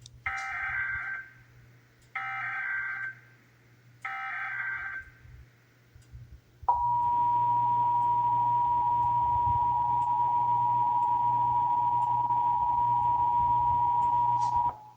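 Emergency Alert System SAME header: three bursts of digital data tones, each about a second long and about a second apart. About six and a half seconds in, the steady EAS attention-signal tone starts, holds for about eight seconds and cuts off just before the test announcement.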